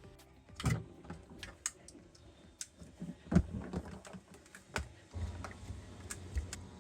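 Scattered light clicks and taps at irregular spacing, about one or two a second.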